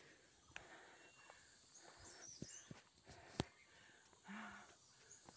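Faint birdsong from the surrounding forest, repeated high chirping phrases, over quiet outdoor ambience. Scattered sharp clicks of footsteps and handling, the loudest a little past three seconds in, and a short puff of breath a bit past four seconds.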